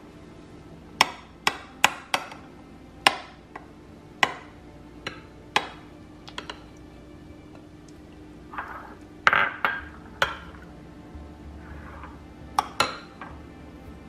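Metal spoon knocking and clinking against a glass bowl and small glass dessert dishes while trifle is scooped out: a dozen or so sharp taps at irregular intervals, with a brief soft scrape about nine seconds in.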